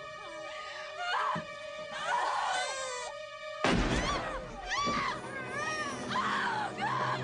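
High-pitched wailing cries that rise and fall in pitch, over film-score music with a steady held tone. A sudden loud crash comes about halfway through.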